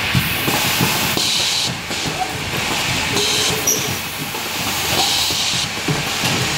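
Pneumatic pick-and-place sorting machine running: short bursts of compressed air hissing from its valves about every two seconds, over a constant clicking and clacking of actuators.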